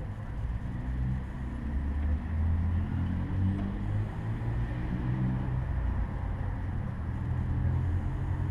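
Low, steady rumble of a vehicle engine running nearby, its pitch drifting slightly up and down.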